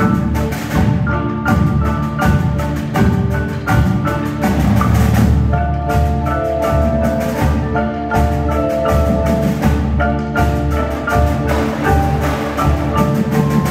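Indoor percussion ensemble performing, led by marimbas and vibraphones playing a rhythmic passage of quick mallet strikes with some held notes, over a strong low end.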